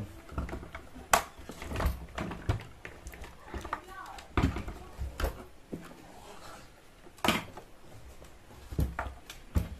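Knocks and clicks of a portable radio's case being handled and shifted about on a bench, with about eight sharp knocks spread through over a faint low hum.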